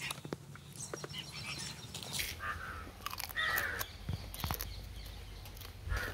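Sharp clicks and cracks of cooked crab shell being pulled apart by hand and sucked at by mouth, with a crow cawing a couple of times about halfway through.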